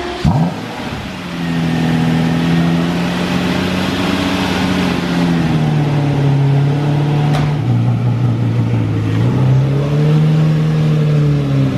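Lamborghini Murciélago V12 running at low revs, its pitch dipping and rising a little with light throttle as the car is moved slowly out of the garage, after a short rise in revs right at the start.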